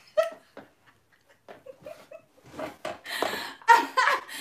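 A woman laughing heartily in breathy bursts, fading almost to nothing about a second in, then building up again and getting louder toward the end.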